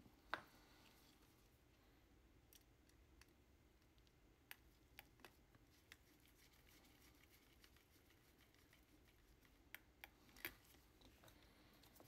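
Near silence broken by a few faint, sharp clicks and taps as small plastic trackball parts and hand tools are handled. The loudest click comes about half a second in, and a quick cluster of three follows near the end.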